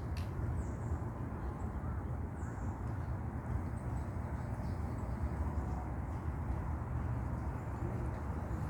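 Outdoor ambience: a steady low rumble with a few faint, brief bird chirps.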